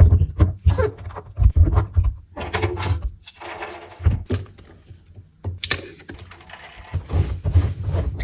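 Hands working on a washing machine: an irregular run of clicks, knocks and thunks, with a few short stretches of rustling noise.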